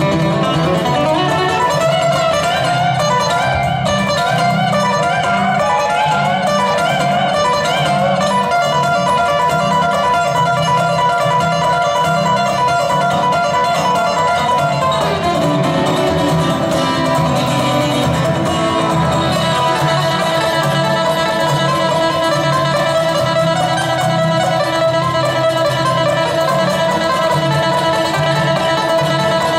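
Live acoustic guitar and dobro playing an instrumental passage, no singing: busy picked guitar notes over a steady, regular bass pattern. The texture changes about halfway through.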